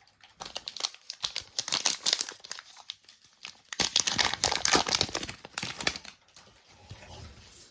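Foil trading card pack wrapper crinkling and tearing, in two spells, the second louder.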